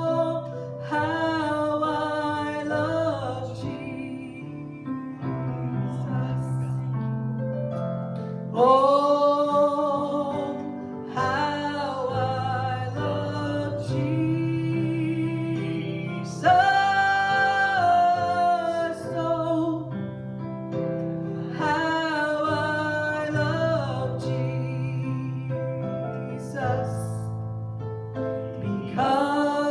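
Worship music: a woman's voice singing long held, sliding notes over sustained keyboard accompaniment.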